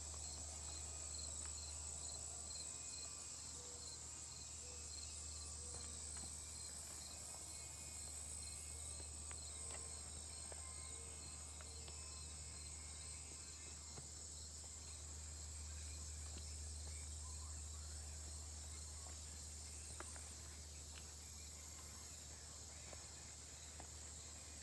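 Insects calling: a steady high buzz with a regular pulsing chirp over it, about three a second, fading out about halfway through, above a low steady rumble.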